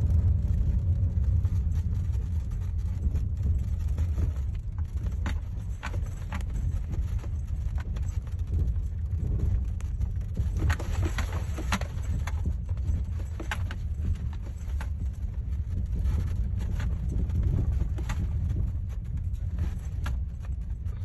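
Steady low rumble of a moving car's engine and road noise heard inside the cabin, with scattered light clicks and rattles.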